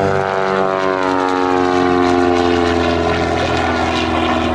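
Van's RV-10 light aircraft's piston engine and propeller running at departure power, a loud drone whose pitch slides down over the first few seconds as it passes, then holds steady.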